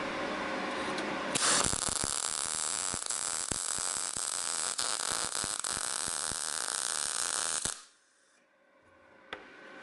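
MAG welding arc from a Weldinger MEW 202 SYN synergic welder with 0.6 mm wire on thin steel sheet. It strikes about a second and a half in with a steady crackling hiss and fast crackles, and cuts off suddenly near the end. A steady hum comes before the arc.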